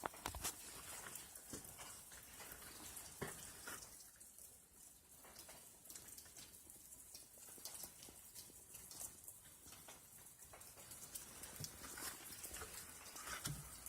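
Faint scattered clicks and light taps while engine oil is poured through a funnel into the generator's oil fill.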